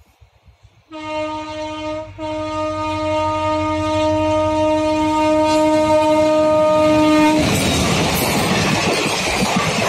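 WDP4 diesel locomotive's horn sounding a short blast and then a long one of about five seconds as the train approaches. As the horn stops, the passenger coaches pass close by with a loud, steady rushing rattle.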